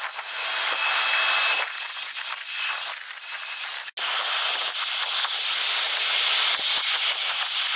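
Jet airliner engine noise played back four times fast, heard as a steady high hiss with no low rumble. It drops out for an instant about four seconds in, and after the break the noise is from a Boeing 787 on landing approach.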